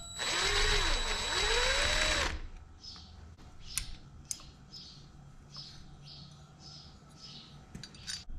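A small electric motor whirs for about two seconds, its pitch dipping and then rising, then cuts off. It is followed by faint handling noises and a few light clicks.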